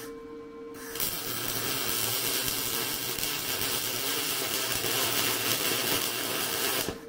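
MIG welding with a Lincoln Electric Power MIG welder: the arc crackles steadily for about six seconds, starting about a second in and cutting off sharply near the end.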